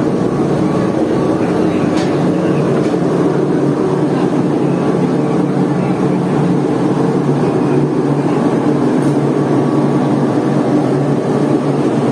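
A ship's engines running, heard on deck as a loud, steady hum with several constant pitches and no change.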